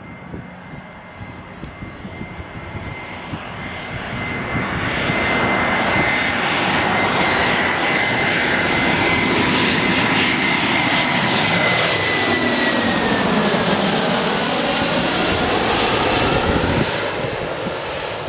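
Airbus A320 jet engines on final approach, flying low overhead with gear down. The sound builds over the first few seconds into a loud steady rush with a high whine, the whine drops in pitch as the plane passes overhead, and the noise falls away near the end.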